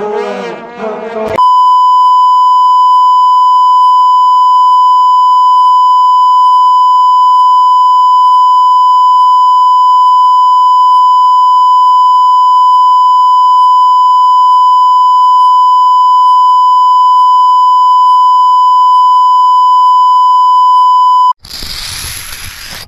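A vuvuzela blare ends about a second in. It gives way to a loud, steady single-pitch beep, the reference tone that goes with TV colour bars, which holds for about twenty seconds and cuts off abruptly. Near the end a harsh scratching starts: chalk scraping on a blackboard.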